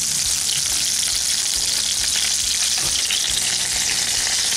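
Hot refined oil sizzling steadily in a kadai around gram-flour-coated, chicken-stuffed pointed gourds (potol) frying to brown, with a few faint clicks.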